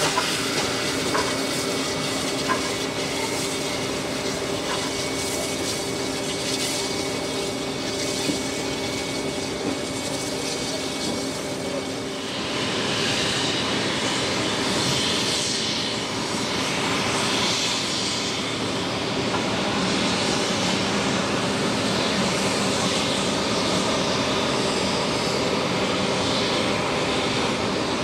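Steam locomotive 5917, a 59 class 2-8-2, working away with its train of carriages: a steady hiss and running noise with a few rail clicks. About twelve seconds in it gives way to louder, slow surges of steam exhaust as the engine pulls away.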